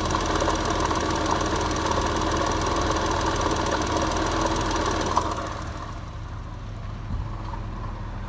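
A 2001 Porsche Boxster S (986) 3.2-litre flat-six running with a steady rattle, which the owner puts down to a failing water pump. About five seconds in, the sound drops and turns duller.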